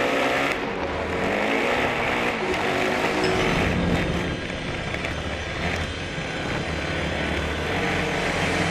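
Off-road motorcycle engine revving, its pitch rising and falling as the throttle is worked.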